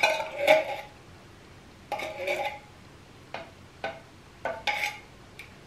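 A metal knife clinking and scraping against the rim and inside of an opened tin can as coconut milk is scraped out, in a string of short separate strokes, some with a brief metallic ring.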